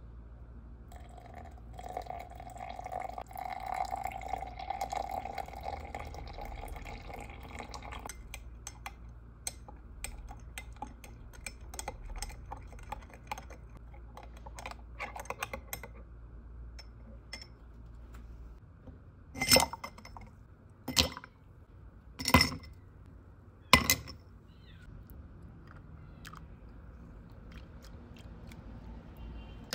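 Hot water poured from a gooseneck kettle into a glass for several seconds, then a metal spoon stirring and clicking against the glass. About two-thirds of the way in come four loud knocks a second or so apart: ice cubes dropped into the glass.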